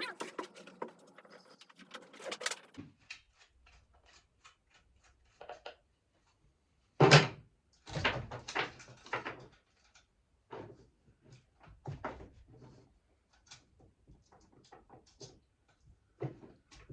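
Scattered clicks, clanks and knocks of metal parts being handled and fitted on a chainsaw and mill, the chainsaw not running. The loudest is a sharp knock about seven seconds in.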